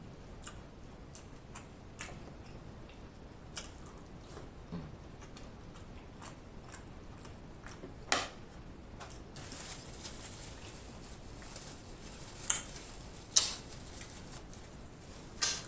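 Close-miked chewing of a mouthful of rice and seafood, with a string of small wet mouth clicks and a few louder clicks and smacks about 8 s, 12.5 s, 13.5 s and near the end.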